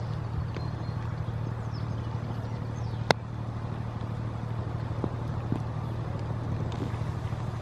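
Steady low engine drone, with scattered light knocks and one sharp click about three seconds in.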